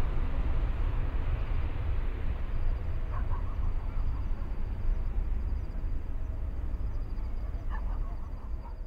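Distant jet engine rumble of a departing Boeing 777-300 climbing away, deep and steady and slowly fading. A few short chirps come through it about three and eight seconds in.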